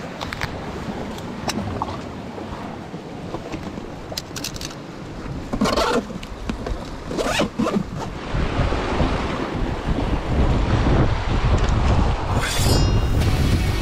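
Sea surf with wind gusting on the microphone, and a few knocks about six and seven seconds in; the wind grows louder in the second half.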